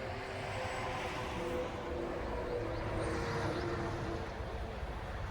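A passing engine heard at a distance: a steady hum that swells towards the middle and fades near the end.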